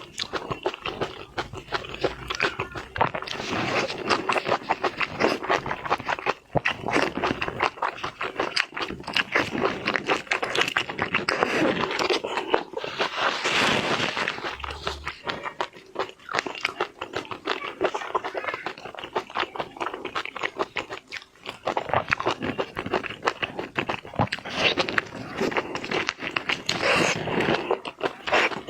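Close-miked eating of seafood: crunchy bites and chewing with frequent irregular crackles, as in an ASMR mukbang.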